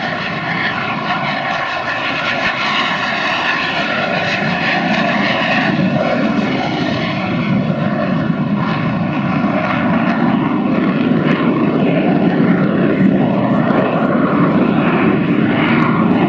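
Jet aircraft flying past: a steady rushing engine noise with whining tones, slowly growing louder.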